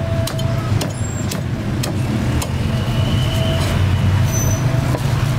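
Steady low vehicle-engine rumble, with sharp irregular knocks of a cleaver chopping roast duck on a thick round chopping block.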